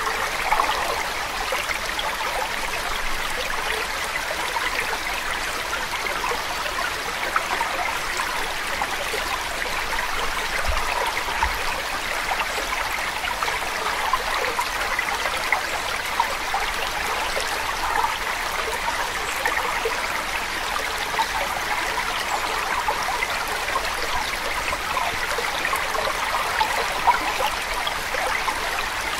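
Steady running water of a stream, with small splashes flickering through it.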